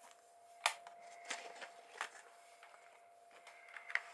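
Handling noises as a paperback book is picked up: several sharp taps and clicks with paper rustling between them, over a faint steady hum.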